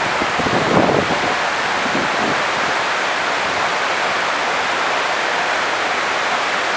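A waterfall rushing: a steady, even rush of falling water, with a few low rumbles in the first second or so.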